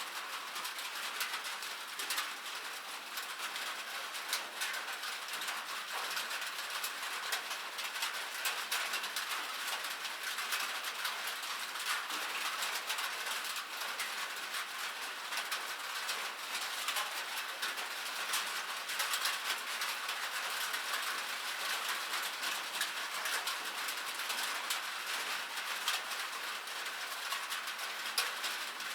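Steady rain on a metal surface: a dense, continuous patter of sharp drop ticks over a light hiss, with a few louder single drops here and there.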